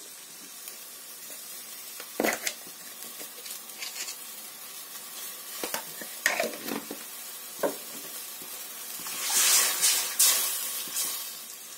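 Onions, chillies and curry leaves simmering in water in a metal kadai, with a faint steady sizzle and a few sharp clicks. Near the end a wooden spatula stirs the mixture, a louder wet scraping and sloshing.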